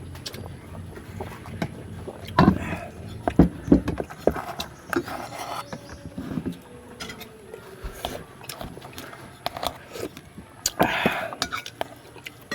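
Scattered clicks and knocks of someone eating a meal by hand and with dishes, with a few brief mouth or voice sounds in between.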